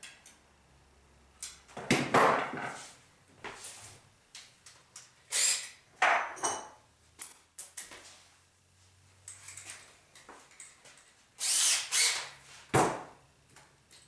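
Handling noise at a workbench: tools and electrical parts rustle, clatter and are set down in several separate bursts, with a sharp knock near the end.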